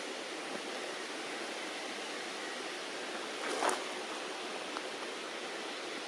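Steady outdoor background hiss with no clear single source, and a short louder rustle about three and a half seconds in.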